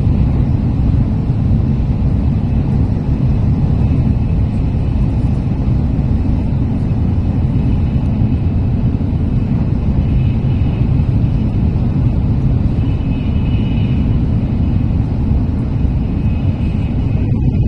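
Steady low rumble of a Tokaido Shinkansen train running, heard from inside the passenger car, with a faint high whine coming in for a few seconds after about ten seconds.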